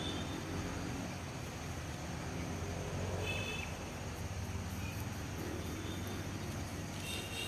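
Outdoor evening ambience: a low steady rumble with a few short, high chirps scattered through it.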